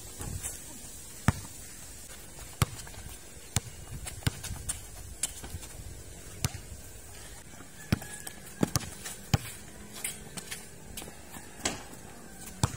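Basketball bouncing on a concrete court and hitting the backboard and rim during one-on-one play: a string of sharp thumps, roughly one a second.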